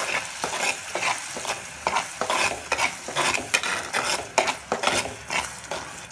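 Masala paste sizzling as it fries in oil in a kadhai, with a spatula stirring and scraping the pan about two or three times a second. This is the bhuna stage, where the raw onion paste is fried down until the oil separates.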